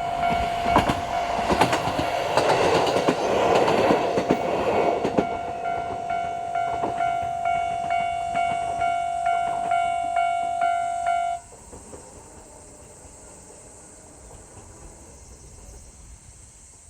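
A Japanese level crossing's electronic warning bell dings about twice a second while a JR 125-series electric railcar passes, its wheels clacking over rail joints for the first few seconds. The bell cuts off suddenly about eleven seconds in as the crossing clears, leaving faint background hiss.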